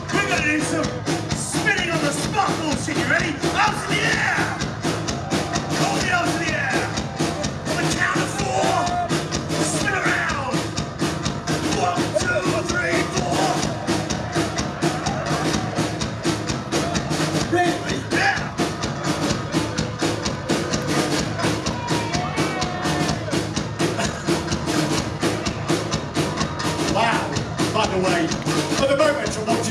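Live thrash metal band playing loud and steady: distorted electric guitars, bass and a drum kit, with shouted vocals over the top, heard through a club PA from within the crowd.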